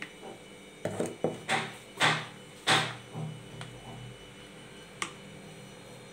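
A spoon stirring and scraping thick lentil batter in a plastic bowl: a run of short wet scrapes roughly half a second apart, then a single sharp click near five seconds in.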